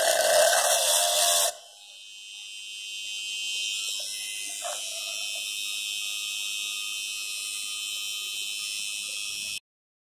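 Homemade drill built from a 12-volt RS-555 DC motor with a small chuck, whining as the bit cuts through a tin can's lid. About a second and a half in, the load comes off and the motor runs free with a steady high-pitched whine, with one light click about halfway. The sound cuts off suddenly near the end.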